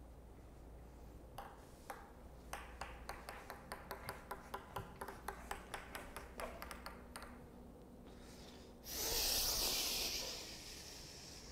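A ping-pong ball bouncing repeatedly, a run of light, hard clicks at about four a second. A loud rushing hiss follows about nine seconds in and fades over a second or so.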